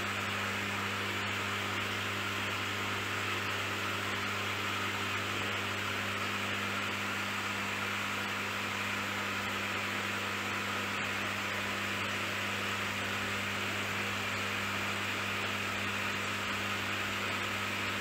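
Steady electric hum with an even hiss, as from aquarium equipment such as an air pump or filter running.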